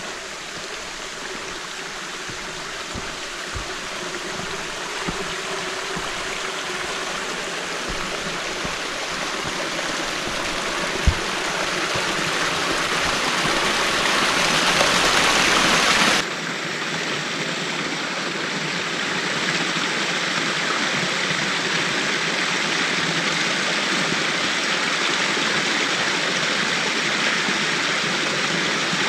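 Small woodland stream running and splashing over rocks, growing louder over the first half as it is approached. About halfway in it changes abruptly to a steadier, slightly duller rush of running water. There are a few soft low thumps early on and one sharp click.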